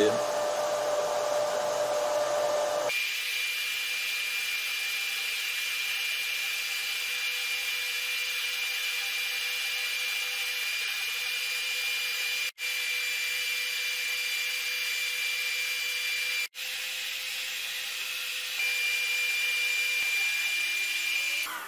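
Steady whir of a FLYING BEAR LaserMan laser engraver's fans at work: the smoke-filter blower and the mainboard cooling fan running, with a steady high whine joining about three seconds in. The sound drops out for an instant twice.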